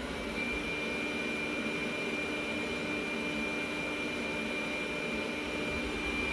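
Narwal T10 robot vacuum's suction fan running steadily with a high whine as the robot drives back to its docking station.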